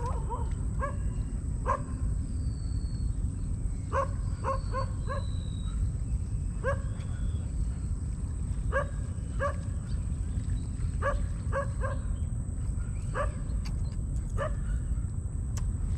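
Dog barking, short barks coming singly or in quick runs of two to four, over a steady low rumble and a thin high whine.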